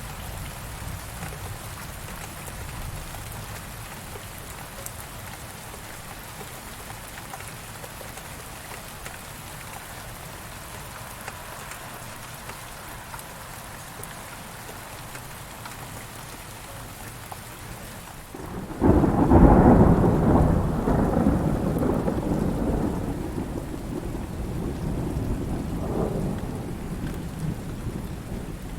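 Steady heavy rain, then about two-thirds of the way in a sudden loud clap of thunder that rolls on as rumbling and slowly fades, swelling once more near the end.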